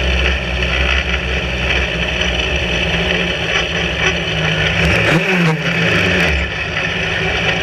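Sbarro Spyder sports-racing car's engine running at low revs as the car rolls slowly, heard from the open cockpit. About five seconds in, the revs rise and fall briefly.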